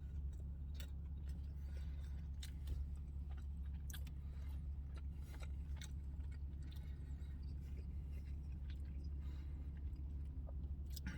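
A person chewing mouthfuls of pizza close to the microphone: scattered small wet clicks and crunches, over a steady low hum.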